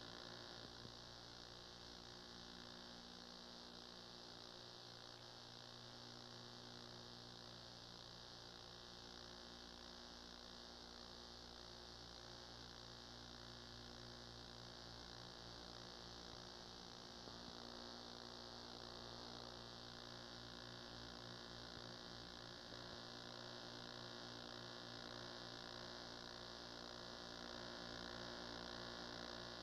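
Near silence: a steady electrical mains hum with its overtones, under a constant tape hiss.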